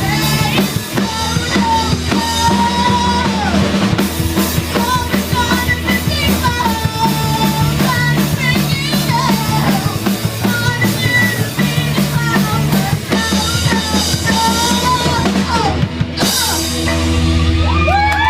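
Live rock band playing: drum kit keeping a steady beat under bass and a sung vocal line.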